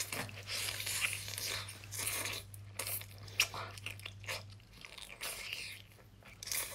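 Close-miked eating sounds of razor clams in spicy sauce being bitten and sucked off a wooden skewer, with wet chewing and a run of short sharp clicks.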